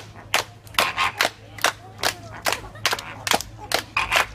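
A run of sharp taps or clicks, irregularly spaced at about two to three a second.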